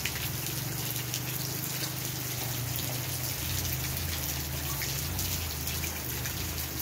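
Steady rain falling, with the patter of individual drops and a low steady rumble underneath.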